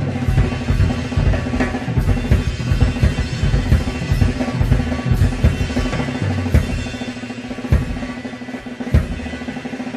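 Drum kit played live in a fast solo: dense snare rolls and kick drum hits, with cymbal crashes cutting in.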